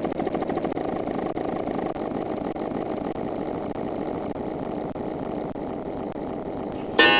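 A short audio clip looped and sped up so far that its repeats run together into a fast, buzzing drone like an idling motor, slowly fading. A loud, bright synthesizer chord cuts in near the end.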